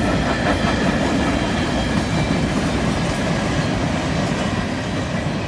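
Freight train boxcars rolling past close by, their steel wheels rumbling and clacking steadily over the rails.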